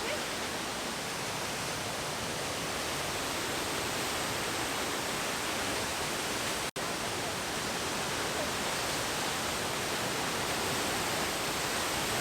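Steady rushing of a waterfall, an even roar of falling water that cuts out for an instant a little past halfway through.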